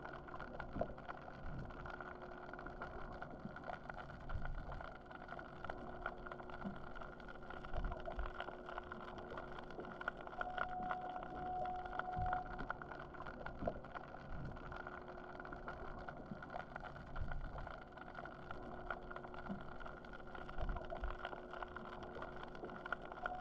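Underwater sound picked up by a GoPro in its housing: a steady hum with two held tones. A higher tone comes in for about two seconds near the middle, and scattered clicks and crackles run through it.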